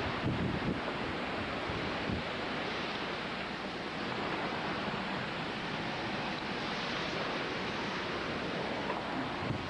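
Hurricane-force wind, gusting around 75 mph, roaring steadily. Gusts buffet the microphone with low rumbles about half a second in, again around two seconds in and near the end.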